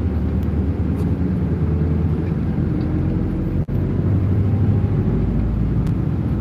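Bus engine and road noise heard inside the passenger cabin: a steady low drone that cuts out briefly once a little past halfway.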